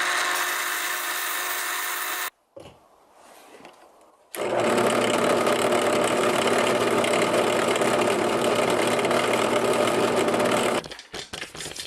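Electric power tool motor running steadily while sanding wooden pen blanks down to diameter, in two runs: about two seconds, then after a short break about six seconds.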